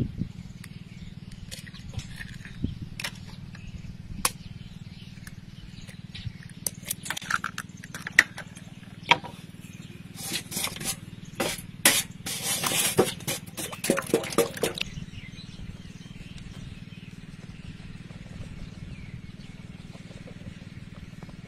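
Eggs tapped against a stainless steel bowl, then a metal spoon clinking and scraping in the bowl in a quick run of strokes from about ten to fifteen seconds, over a steady low hum.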